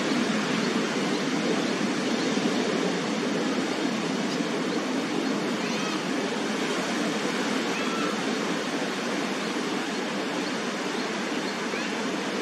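Steady rush of ocean surf breaking on the shore, an even, unbroken noise.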